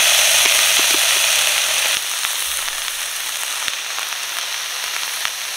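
Hanwoo beef sizzling as it cooks, a dense frying hiss with scattered pops. It is loudest at first and eases slightly about two seconds in.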